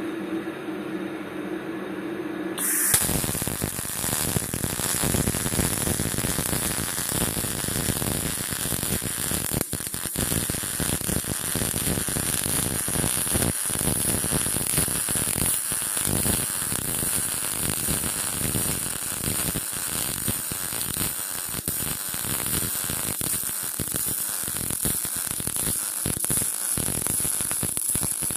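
ONE-WELDING inverter MIG/ARC 350TT MIG welder: a steady hum, then about three seconds in the arc strikes and a continuous crackling sizzle of MIG welding on 2 mm steel runs on.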